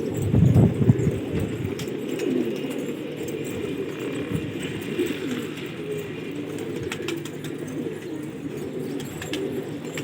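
Many domestic pigeons cooing at once, their overlapping low calls forming a dense, continuous chorus. A louder low rumble rises over it in the first second.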